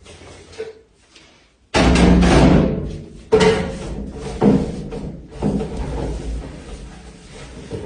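Background music: after a quiet opening moment it comes in suddenly with strong percussive hits and sustained pitched notes.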